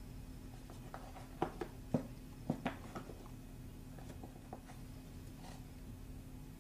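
Light clicks and taps of hand soldering work, a handful of them close together in the first half, over a steady low hum.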